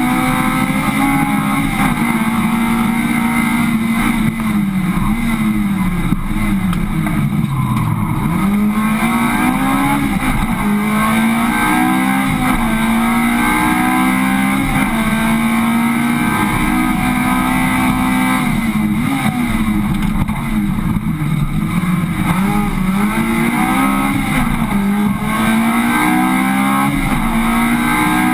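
Honda Civic's engine at high revs under hard driving, heard from inside the car. The pitch climbs steadily and drops sharply at each gear change, several times over. About six to eight seconds in it falls away in a long slide, then climbs again.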